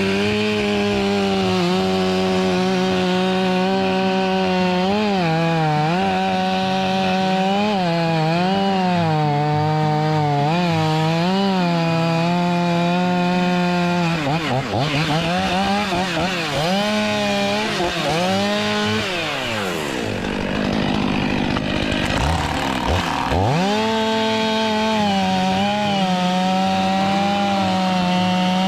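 Stihl MS 500i fuel-injected 79.2 cc two-stroke chainsaw running at high revs while cutting wood, its engine pitch dipping again and again as the chain loads up in the cut. About twenty seconds in, the engine drops to a low note, then revs back up to full speed.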